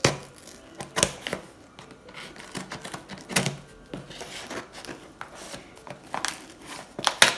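Scissors cutting through packing tape on a cardboard box: a string of irregular sharp snips and clicks, the strongest near the start and just before the end, with quieter crinkling between.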